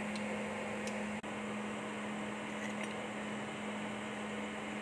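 Steady low hum with an even hiss, unbroken across the whole stretch apart from a brief dip about a second in; a couple of faint light clicks near the start.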